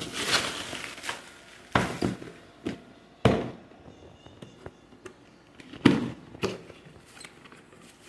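Packaging being handled: bubble wrap rustling and crackling as a boxed product is pulled out of it, then a cardboard box being opened by hand, with four sharp crackles and softer rustling between.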